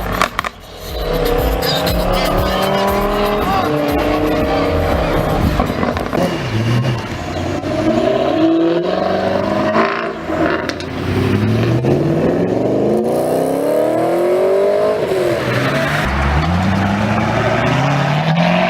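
Sports car engines accelerating hard, the pitch climbing with the revs and falling back at each gear change, several times over.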